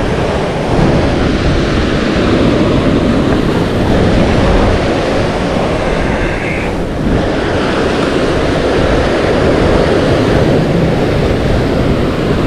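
Surf breaking over a rock ledge, with wind buffeting the microphone; a steady, loud wash of noise.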